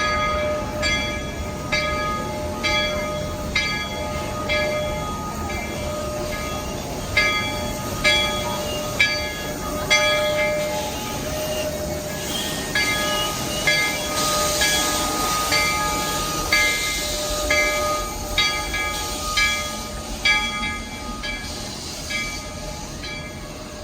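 Steam locomotive's bell ringing about once a second as the train pulls into the station. A hiss of steam rises under it around the middle.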